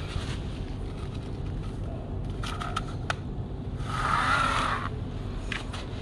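Plastic toy dump truck pushed by hand through coarse sand: gritty scraping with a few sharp clicks, and a louder scrape about four seconds in, over a steady low rumble.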